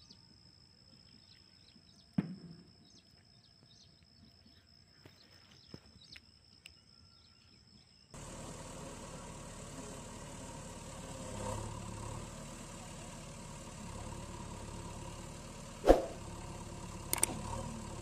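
Quiet ground with a thin steady high whine and a few clicks, then, about eight seconds in, a steady engine-like running noise with a low hum starts suddenly as the toy dump truck drives. A couple of sharp knocks come near the end.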